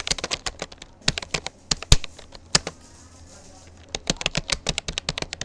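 Typing on a Rapoo computer keyboard: keys clicking in quick runs, with a pause of about a second midway before another fast run.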